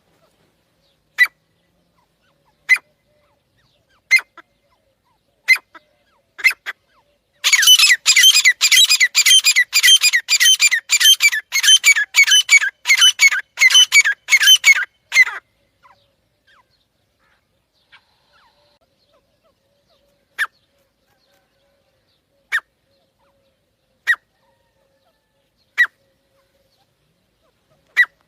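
Francolin (teetar) calling: single sharp, high calls about every second and a half, then a fast run of repeated calls, about three a second, lasting some eight seconds, then single calls again every two seconds or so.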